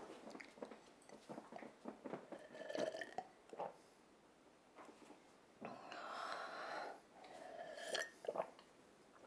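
A person drinking water from a glass, faintly: small clicky sips and swallows, then two longer gulping sounds a little past halfway and just before the end.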